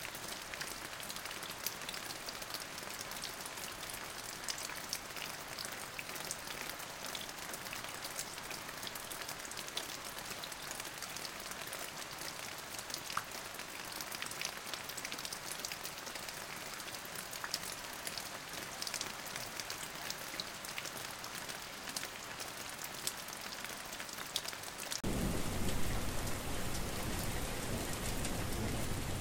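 Heavy rain falling into standing water, a dense steady hiss dotted with many small splashing drop impacts. About 25 seconds in it cuts abruptly to louder, deeper-sounding rain with much more low-end noise.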